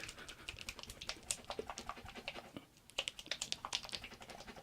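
Plastic bottle of freshly mixed e-liquid being shaken by hand: quick, irregular clicks and sloshing rattles with a brief pause about three seconds in.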